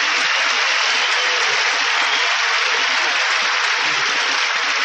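Audience applauding steadily, a dense, even wash of clapping.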